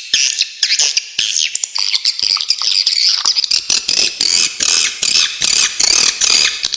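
Swiftlets calling: rapid, sharp, high-pitched chirps and twittering trills in quick succession.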